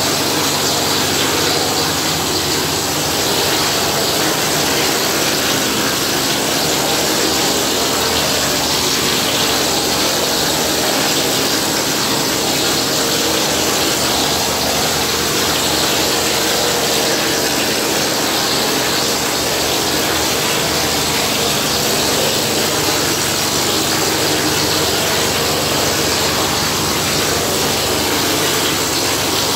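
Gypsum plaster sprayed from a plastering machine's spray gun onto a wall: a steady, loud hiss of compressed air and spraying plaster, over a steady low hum from the machine.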